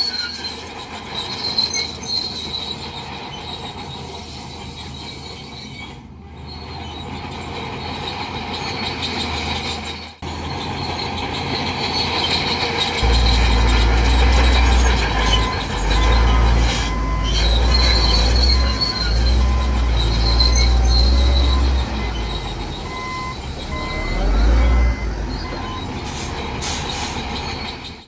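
Bulldozer at work: a steady squeal and grinding typical of steel crawler tracks running over the engine's drone. A heavy deep rumble comes in about halfway through.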